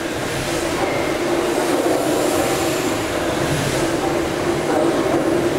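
Gimson steam beam engines running together: a steady mechanical rumble, with steam hiss that swells and fades.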